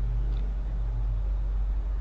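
Steady low hum with no speech over it, the constant background drone of the recording.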